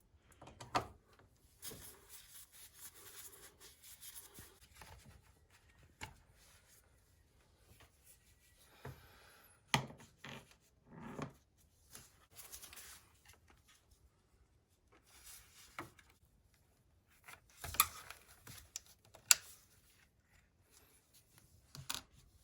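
Hand work in a car's engine bay: rustling and rubbing with a few sharp clicks and knocks, loudest around the middle and near the end, as parts around the oil filter are worked loose.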